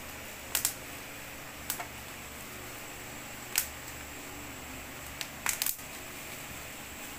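Small evaporative air cooler's fan running with a steady low hum, while a hand touching its plastic louvers makes several sharp clicks and taps, the loudest about three and a half seconds in.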